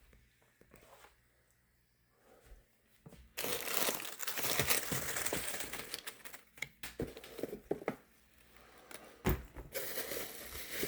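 Crinkling and rustling of wrapping or packing material being handled, starting about three seconds in, pausing briefly, then going on near the end.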